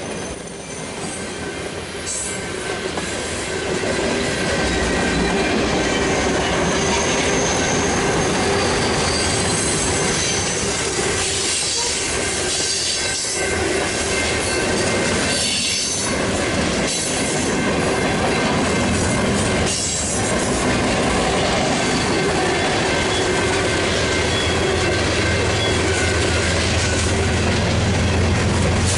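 Freight cars rolling past at a crossing, steel wheels squealing in steady high tones and clacking over rail joints. Near the end the low rumble of a BNSF diesel locomotive's engine builds as the unit comes alongside.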